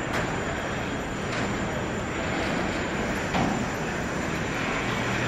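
Urban street ambience: a steady din of traffic and construction, with a few short knocks, the loudest about three and a half seconds in.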